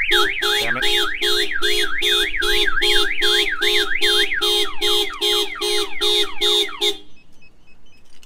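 Car alarm siren set off by the key fob. It gives a fast wail sweeping up and down about three times a second, switches about four seconds in to rapid falling chirps over a steady pulsing beep, and cuts off suddenly about seven seconds in.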